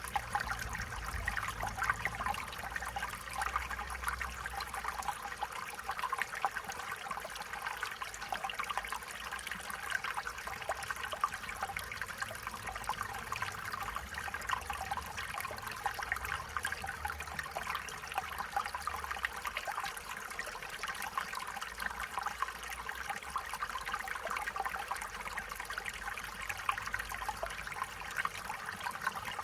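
Stream water trickling and babbling over stones, a steady bright splashing that keeps on without a break.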